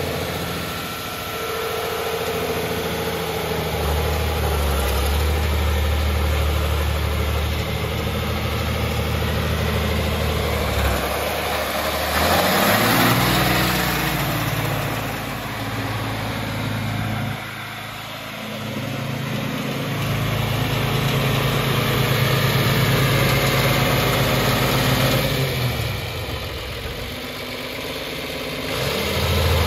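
John Deere 2955 tractor's six-cylinder diesel engine running, mostly at idle. The engine speed picks up about twelve seconds in, drops back, then rises again about twenty seconds in, falls off, and picks up once more near the end.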